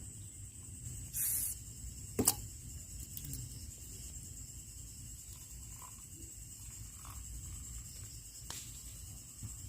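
Insects droning steadily at one high pitch, with a brief hiss just over a second in, a sharp click about two seconds in and a smaller click near the end.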